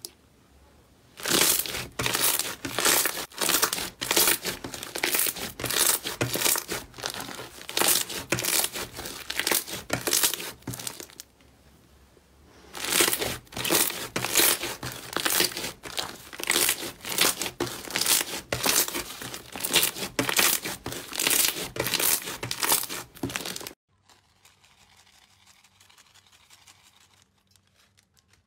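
Hands pressing and kneading a thick yellow slime, making dense, fast crackling and squelching. It comes in two long spells with a short pause about eleven seconds in, and goes faint near the end.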